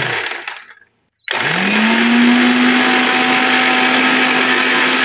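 Electric mixer grinder with a small steel jar, pulsed while blending egg and oil into mayonnaise. The motor winds down and stops within the first second, then after a short pause starts again, spinning up to a steady run.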